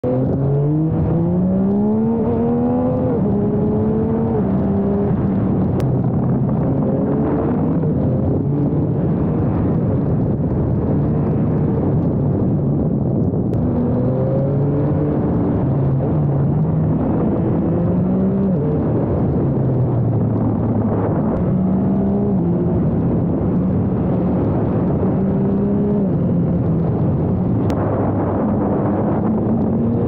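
Yamaha MT-09 SP's three-cylinder engine under way, its pitch climbing again and again for a second or two under acceleration and stepping down between climbs as the gears change.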